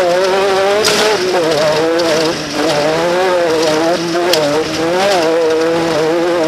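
Off-road race vehicle's engine running and revving, its pitch rising and falling constantly with the throttle, with a couple of sharp knocks about a second in and again past the four-second mark.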